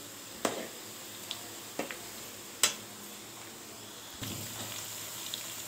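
Potato chips deep-frying in hot oil in a steel karahi: a steady sizzle, with the metal slotted spoon knocking against the pan three times.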